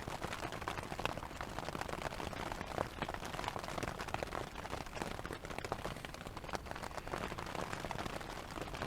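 Steady rain on a tent, heard from inside: a dense, irregular patter of drops striking the fabric.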